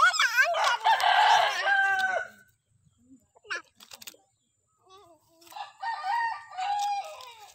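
A rooster crowing twice: one long crow that opens with a quick rising call and trails off after about two seconds, then a second crow a few seconds later.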